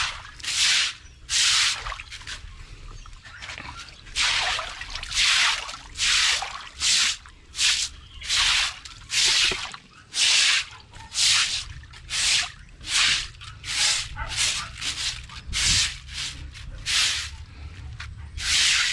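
Water spurting from a well pump's outlet in even surges, a little more than one gush a second, splashing into a pool, with a steady low hum underneath.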